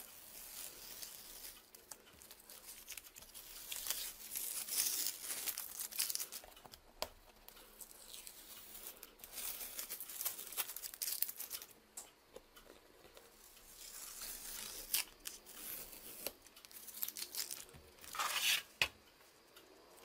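Masking tape being peeled off the border of a sheet of rough cotton watercolor paper, in several pulls of a few seconds each with short pauses between.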